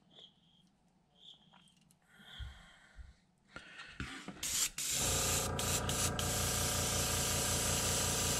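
Airbrush spraying. After a few faint small sounds, a loud, steady hiss of air starts about halfway through, with a steady hum under it. The brush is being sprayed clear because pearl paint was drying on its tip, until the paint comes out again.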